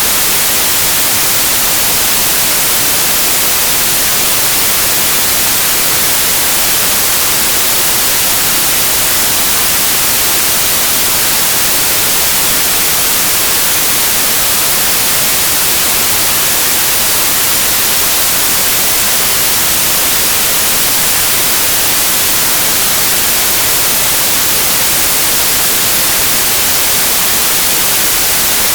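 Steady white noise: a constant, even hiss, strongest in the treble, with no change throughout.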